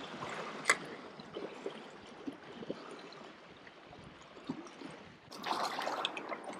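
Seawater trickling and washing among shoreline rocks, with one sharp click under a second in and a louder rush of noise lasting about a second near the end.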